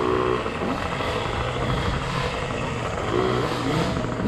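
Small off-road motorcycles revving in short rising and falling bursts over a steady rush of wind and rumble.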